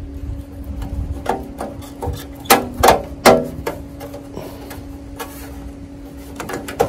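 Handling knocks and clicks of an old photocell switch and its wires being worked loose inside a metal landscape-lighting transformer box, with three sharp knocks close together about halfway through, over a steady hum.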